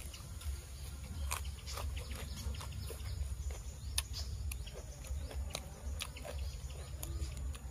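Close-up eating sounds: a man chewing raw beef and fresh greens, with irregular sharp mouth clicks and smacks over a steady low hum.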